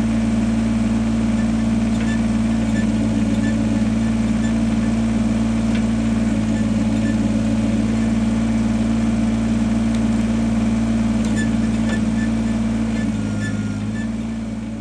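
A vehicle engine running steadily at an even speed, a constant hum that fades away near the end.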